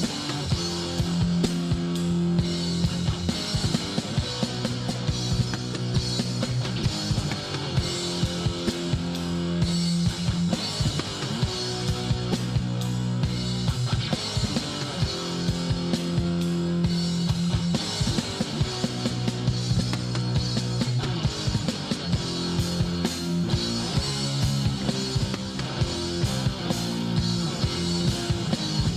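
Instrumental hardcore punk: distorted electric guitars playing held power chords over a fast, driving drum kit beat, with no vocals.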